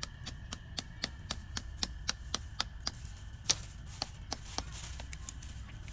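A quick, regular series of sharp light knocks, about four a second, for about four and a half seconds, with one louder knock about three and a half seconds in.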